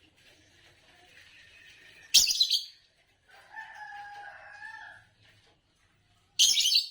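Green Fischer's lovebirds calling. There is soft chatter at first, then a loud shrill chirp about two seconds in, a longer, lower, steady call in the middle, and another loud shrill chirp near the end.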